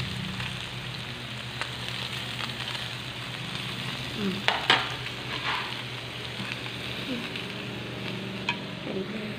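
Slices of pork belly sizzling on a round metal grill pan, a steady frying hiss. Metal tongs click against the pan a couple of times about four and a half seconds in, and once more near the end.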